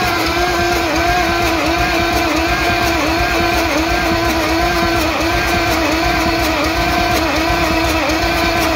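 The 24-volt electric starter of a 1954 Peterbilt cranks its long-dormant diesel engine without it firing. The starter's steady whine sags in pitch at a regular rhythm, about one and a half times a second, as the engine turns over. The cranking is meant to build oil pressure, and none shows yet.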